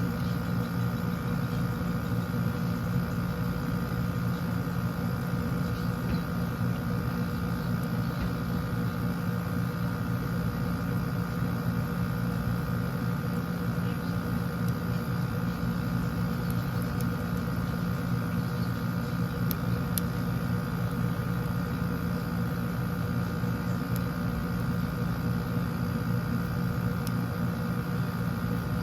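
Steady mechanical hum with several fixed tones, unchanging throughout, with a few faint clicks.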